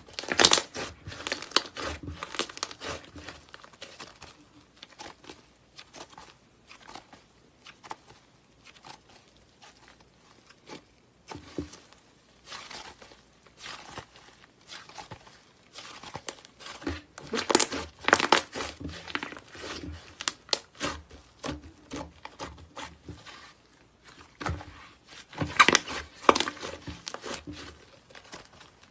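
Slime being kneaded, folded and stretched by hand, giving dense sticky crackling and popping. It is loudest in spells at the start, about two thirds of the way through, and near the end.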